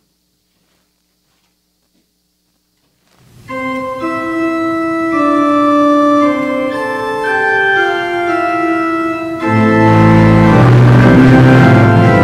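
Church organ starts playing about three seconds in, after a near-silent pause, with sustained chords; about halfway through it grows louder and fuller as low bass notes join.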